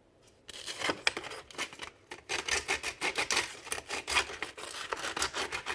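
Sandpaper rubbed by hand over a small Goatguns SVD model gun part in quick, irregular scratchy strokes. It starts about half a second in and pauses briefly around two seconds.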